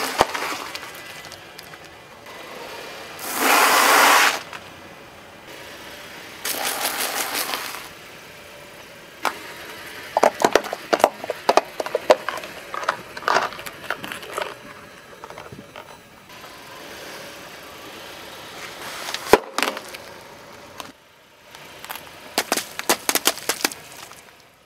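A car tyre rolling slowly over objects and crushing them one after another: two loud crinkling bursts, then rapid crackling as plastic cups split. There is a single sharp crack and a last run of pops and crackles as gel-filled plastic packets are squashed near the end.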